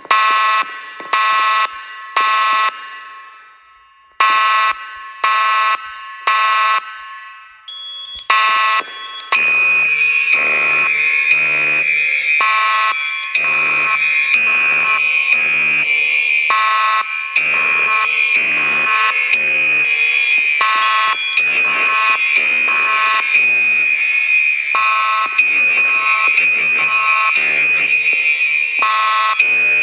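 Fire alarm horns sounding the temporal-three evacuation pattern: three short blasts, a pause, then three more. About nine seconds in, a louder mix takes over, a steady high-pitched tone running under repeated blasts from several horns.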